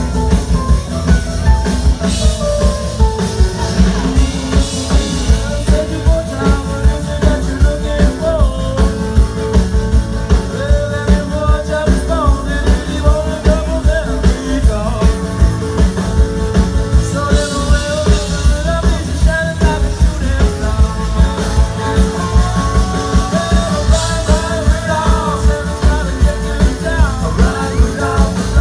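Live band playing an upbeat rock-style song over a PA, with a steady drum beat, guitar and singing.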